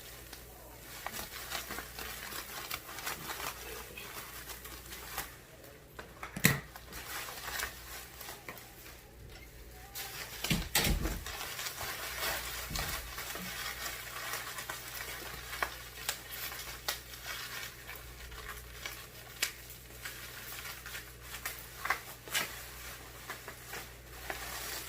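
Packaging being worked open by hand: irregular rustling, scraping and small knocks, with a sharper knock about six seconds in and a louder clatter around eleven seconds.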